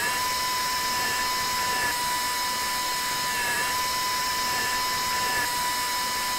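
Dental implant handpiece spinning a round marker burr at a steady speed, a constant high whine, as it marks the implant site on a model jaw's ridge.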